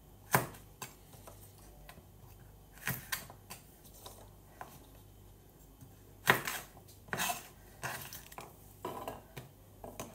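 Kitchen knife slicing vegetables on a cutting board: irregular sharp knocks of the blade hitting the board, about a dozen, the loudest about six seconds in.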